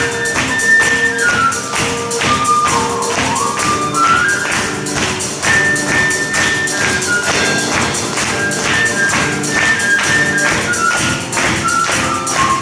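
Live ensemble music: a transverse flute plays a lively melody in quick stepwise runs over piano and drum kit, with a steady percussive beat that the audience claps along to.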